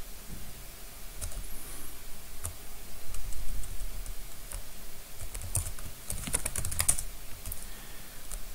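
Typing on a computer keyboard: scattered single keystrokes, then a quicker run of key presses about six to seven seconds in.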